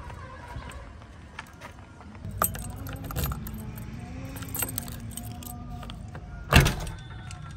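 Keys jangling on a key ring as the key goes into the JCB 3DX backhoe loader's cab door lock, with small clicks, then one loud sharp clack as the lock turns and the door latch releases, about six and a half seconds in. A low steady hum sits underneath for a few seconds.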